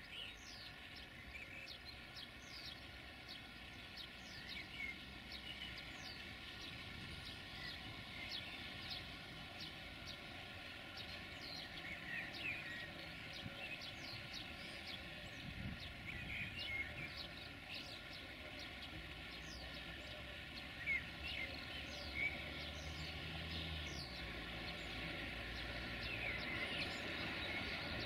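Birds chirping and singing throughout, over the engine of an approaching diesel locomotive hauling passenger coaches, faint at first and growing louder near the end.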